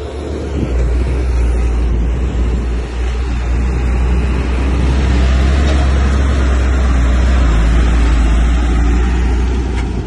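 Heavy diesel engine of a bulldozer running with a deep, steady rumble, growing louder about a second in.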